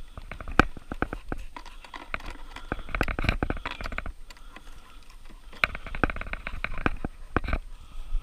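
Clicks, knocks and rattles from handling a metal ferret carry box, its catches and hinged doors worked to let the ferrets out, with rustling. The clatter comes in bursts about three seconds in and again from about five and a half to seven and a half seconds.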